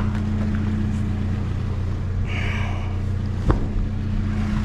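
A vehicle engine running with a steady low hum, likely heard from inside the truck's cab. A short hiss comes a little after two seconds in, and a single sharp knock comes about three and a half seconds in.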